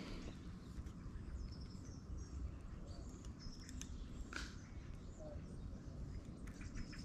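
Small birds chirping faintly, short high chirps scattered throughout, over a steady low rumble of outdoor background noise, with a few faint clicks.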